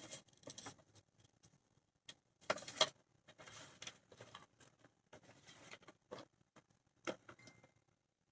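Soft scratching, rubbing and light taps at irregular intervals from a paintbrush and hands working paint onto a decorated glass bottle, with a louder cluster of scratches about two and a half seconds in.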